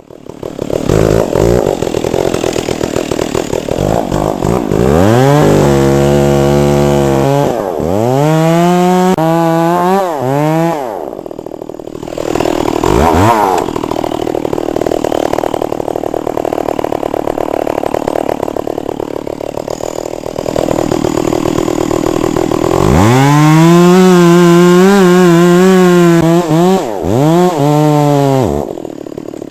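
Chainsaw revving up and down repeatedly while cutting wood. It is held at high speed for a few seconds at a time and drops back toward idle in between.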